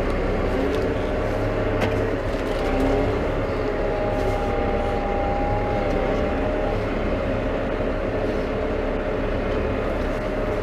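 New Holland T5.120 tractor's diesel engine running steadily while the tractor reverses, with a faint whine that comes and goes in the middle.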